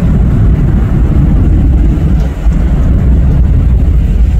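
Boeing C-17A Globemaster III's four turbofan engines at takeoff thrust as the jet climbs away: a loud, steady, deep rumble.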